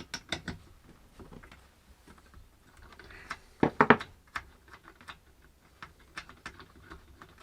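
Irregular small clicks and taps of hands working on a chainsaw and handling small tools and parts, with a louder cluster of knocks about three and a half seconds in.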